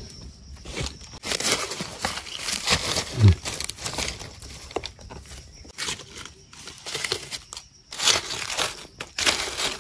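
Irregular crinkling and rustling, in uneven bursts, with a brief low vocal sound about three seconds in.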